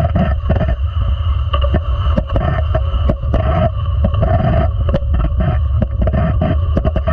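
Ice sled for sled hockey running over the ice, heard from a camera mounted on the sled itself: a loud, steady low rumble from the blades on the ice, with frequent irregular sharp clicks of stick picks striking the ice.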